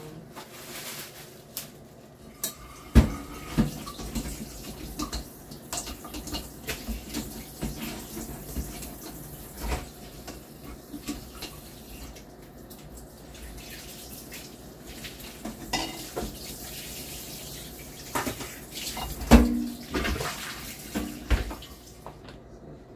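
Kitchen tap water running into a sink while small glass and plastic parts are rinsed, with irregular clinks and knocks of glass and dishware against the sink, the sharpest about three seconds in and again late on.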